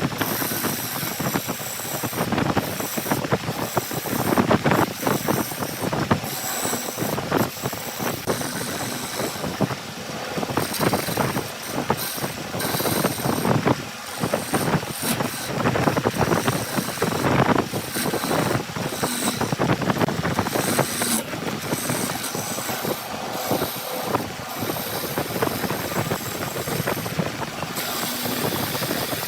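Heavy machinery running continuously, with many irregular knocks and clatter.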